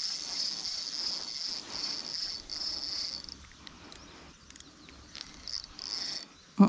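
Insects trilling steadily in a high pitch, in long stretches broken by short gaps, dying away a little after three seconds and returning briefly near the end. A few faint ticks sound in the middle, and a short loud vocal exclamation comes right at the end.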